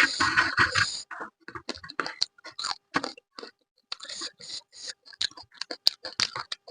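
Close-miked eating of crab curry: chewing with wet crackles and crunches, dense for about the first second, then scattered short sharp clicks.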